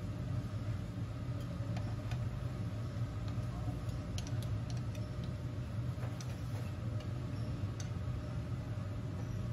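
Hotteok frying in shallow oil on a flat steel griddle: a steady sizzle over a low hum, with light metal clicks of a hotteok press and tongs against the griddle, several between about four and eight seconds in.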